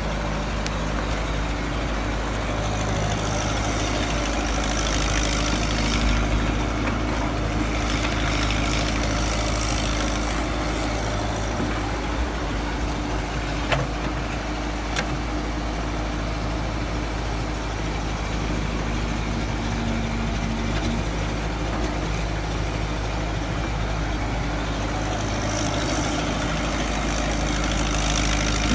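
Excavator engine running steadily, with a couple of short sharp knocks about halfway through.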